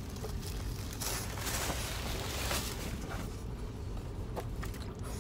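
Steady low rumble of a car cabin, with a few faint, brief rustles and light taps over it.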